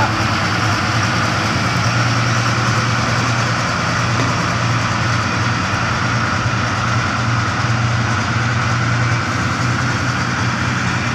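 Engine of a pneumatic-tyred road roller running steadily as it rolls fresh asphalt, a constant low drone.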